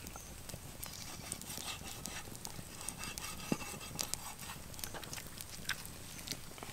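Sparse light taps and knocks of a cleaver on a wooden chopping board as raw chicken legs are scored, over a faint steady hiss.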